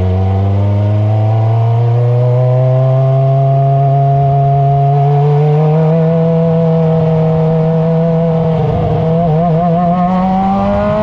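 F1000 formula car's 1000 cc motorcycle-derived engine heard onboard, pulling in gear with its pitch climbing slowly, then holding steady. Its note wavers briefly near the end before it starts rising again as the car accelerates.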